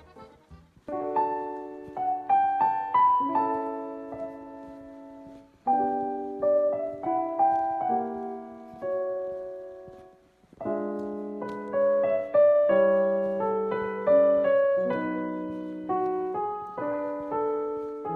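Background piano music: chords and a melody in phrases, with short pauses between phrases about five and ten seconds in.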